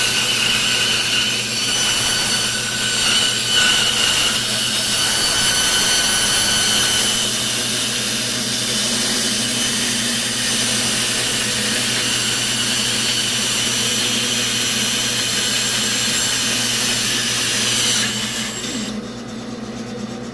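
Bandsaw running with its blade cutting through a thick wooden block: a steady motor hum under the hiss of the cut. Near the end the cutting noise stops suddenly as the cut comes through and the piece is freed, leaving the saw running.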